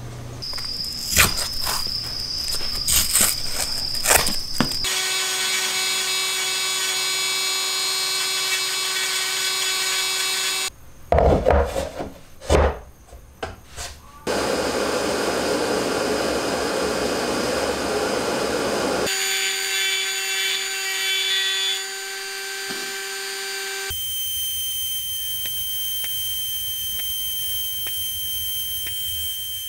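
Workshop power-tool sounds in several short cuts: a small electric lathe spinning and scraping a driftwood blank at the start, knocks and machine noise in the middle, and a handheld rotary tool grinding into the wood with a steady high whine from about 24 seconds on.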